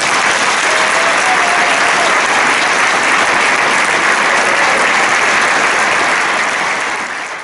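Audience applauding, a steady dense clapping that fades near the end.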